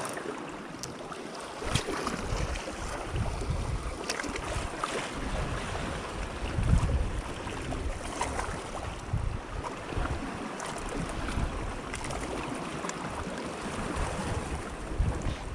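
Wind buffeting the microphone in irregular low gusts over the steady wash of sea waves, with a few faint clicks.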